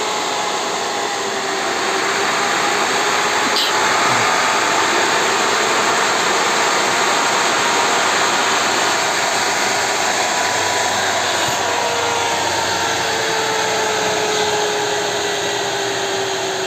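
Cryptocurrency ASIC miner's cooling fans running loud and steady as the miner boots up: an airy rush with faint whining tones that drift slowly in pitch as the fan speed changes.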